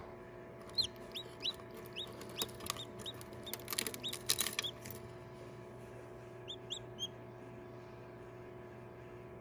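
Newly hatched chicks peeping: a quick run of short, high, falling peeps in the first few seconds and two more near seven seconds in. There is a cluster of clicks and rustles around four seconds in, over a steady low hum.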